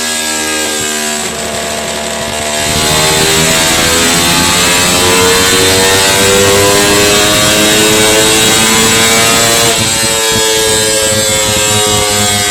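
Yamaha R25 motorcycle's 250 cc parallel-twin engine pulling hard under throttle, revs climbing steadily for several seconds. Near the end the pitch drops abruptly, then holds.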